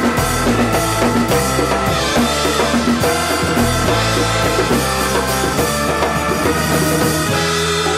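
Live jam-rock band playing: drum kit, electric bass and electric guitar together at a steady groove.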